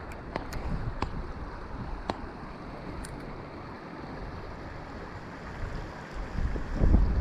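Creek water running steadily, with a few light clicks in the first three seconds and wind buffeting the microphone in heavy gusts near the end.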